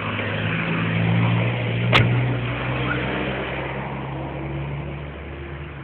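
A motor vehicle's engine running past, growing louder over the first second or two and then fading away, with a sharp click about two seconds in.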